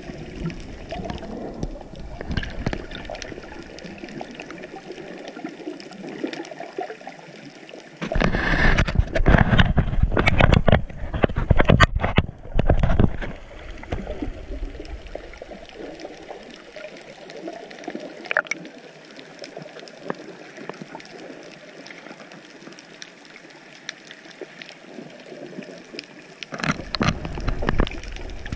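Seawater gurgling and splashing against an action camera held at and just under the surface while snorkelling, muffled between louder splashy stretches about a third of the way in and again near the end.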